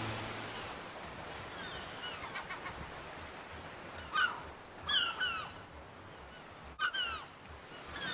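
A dog giving short, high yips and whines that fall in pitch, in quick clusters about four, five and seven seconds in.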